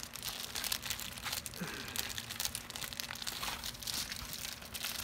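Packaging crinkling and rustling as a parcel is handled and opened, with many short crackles in quick succession.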